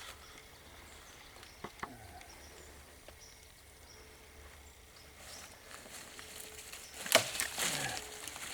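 Rustling and crunching in woodland ground cover, faint for the first few seconds with a couple of small clicks, then louder from about five seconds in and loudest near the end.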